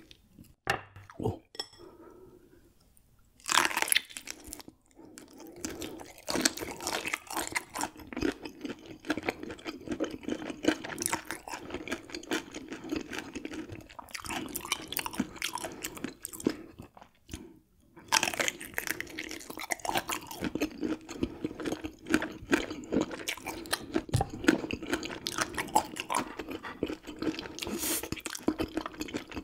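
Close chewing and crunching of raw gizzard shad, bones and all, with crisp crackles as the small bones break. It starts a few seconds in and goes on in steady runs, with a short pause past the middle.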